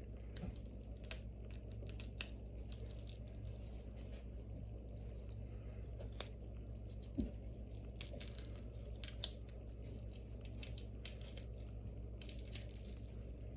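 Adhesive strips being peeled and picked off a phone's back glass: faint tearing and scratching with scattered light clicks, over a steady low hum.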